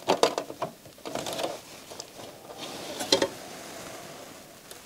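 Small clicks and light metallic rattles from a MiniDisc deck's sheet-metal drive mechanism and its ribbon-cable connectors being handled and fitted into the deck's chassis. There are a few sharp clicks, with the loudest cluster about three seconds in.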